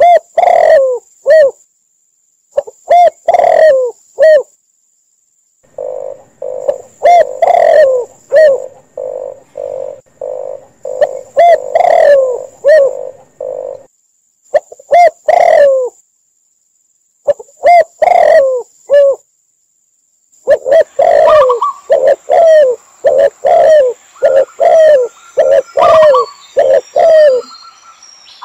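Mixed calls of spotted doves, red collared doves and zebra doves: phrases of short cooing notes in groups, broken by brief silences. In the middle comes a quick run of evenly spaced coos, about two a second, and near the end higher notes overlap the cooing.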